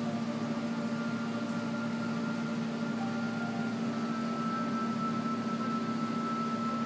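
Steady machine hum with an even fan-like hiss, typical of the pumps and filtration running on reef aquarium displays, with a few faint held tones drifting above it.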